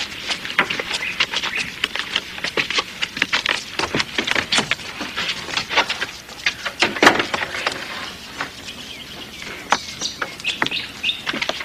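Birds chirping over a dense run of irregular sharp ticks and taps, with the loudest tap about seven seconds in.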